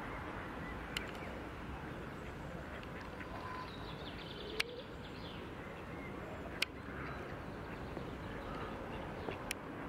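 Waterfowl calling faintly over steady background noise, with four sharp clicks spaced a few seconds apart.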